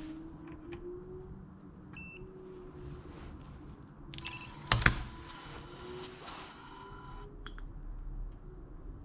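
Fujikura 70R+ ribbon fusion splicer: a short electronic beep about two seconds in, then another beep as its SET button is pressed, and the windshield lid shutting with a sharp clack about five seconds in; a small click follows as the splicer starts gap setting.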